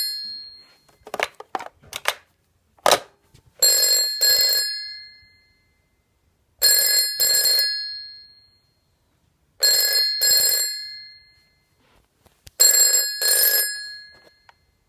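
Original electromechanical bell of a 1969 AWA 801 rotary dial telephone ringing on an incoming call in a double-ring pattern: two short rings, a pause, repeating about every three seconds, four times. A few sharp clicks and knocks come before the first ring.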